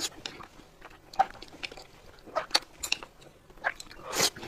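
Close-up eating sounds: chewing with wet mouth smacks and clicks at an irregular pace, a few of them louder.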